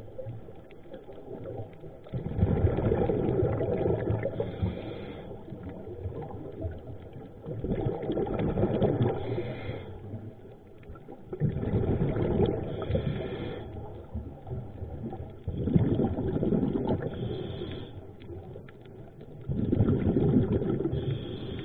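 Scuba diver breathing through a regulator underwater: five bursts of exhaled bubbles, each lasting a couple of seconds and coming about every four seconds, with quieter stretches between.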